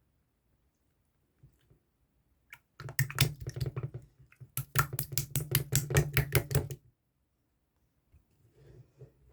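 A rapid run of sharp clicks or taps, about six a second, lasting about four seconds with a short break partway through.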